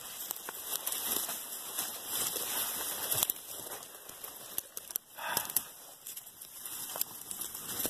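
Footsteps and rustling through forest undergrowth: dry leaf litter and twigs crackling and snapping underfoot, branches brushing past, with many sharp crackles throughout.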